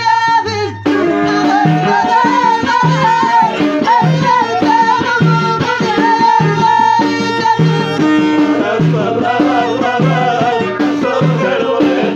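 Moroccan Middle Atlas folk music played live: hand drums keep a steady beat under a bending melodic line, the drum beat coming in about a second in.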